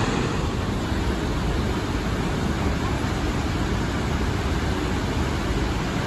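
Snoqualmie Falls, a large waterfall, giving a steady, loud rush of falling and crashing water.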